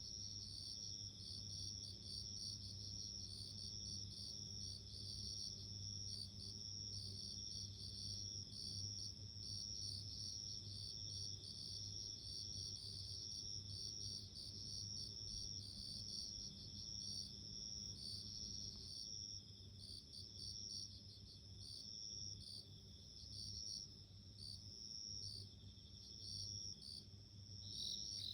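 Japanese bell crickets (suzumushi) chirping in a continuous chorus of short, high, pulsed trills at several overlapping pitches, over a faint steady low hum.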